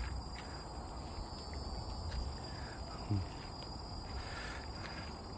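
Insects giving a steady, high-pitched drone on two constant pitches, over a low rumble.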